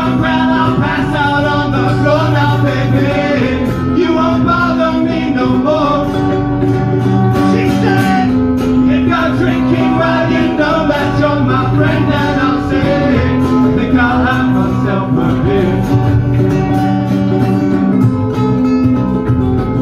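Live band playing: strummed acoustic guitars over an electric bass line, with a wavering lead melody on top.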